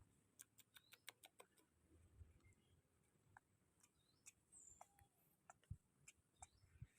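Near silence with faint, scattered clicks, a quick run of them in the first second and a half, and a few faint high bird chirps.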